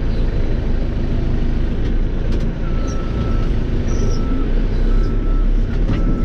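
Cat 430E backhoe loader's diesel engine running steadily, heard from inside the cab. From about two seconds in, a warning beeper sounds roughly once a second.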